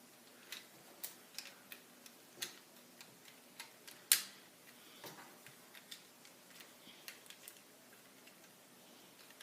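Plastic Lego bricks clicking and tapping as a loose piece is worked into place by hand: light, irregular clicks, with one sharper click about four seconds in.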